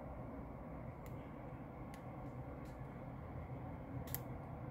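Faint, steady, muffled rumble of road traffic heard from indoors, with a low hum and a few sharp clicks scattered through it.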